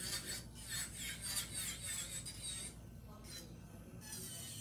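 Electric nail drill bit grinding along an acrylic nail: a high, wavering whine that changes as the bit is pressed and moved. It drops away about two-thirds of the way through and comes back briefly near the end.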